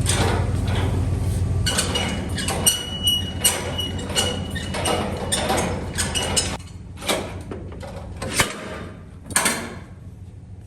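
Metal parts clanking and clinking as a latch or lock is worked, with a brief metallic ring about three seconds in, over a steady low engine hum. The knocks come thick at first and thin out to a few sharp clanks after about six and a half seconds.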